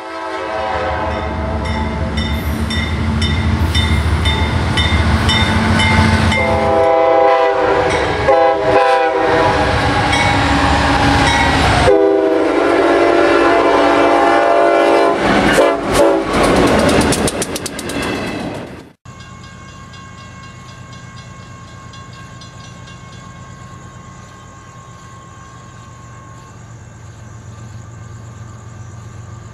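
Diesel freight locomotives sounding multi-chime air horns in a series of blasts at a grade crossing, over the low engine rumble and wheel clatter of the train. About two-thirds of the way through the sound cuts to a much quieter, distant train, and a loud horn starts again at the very end.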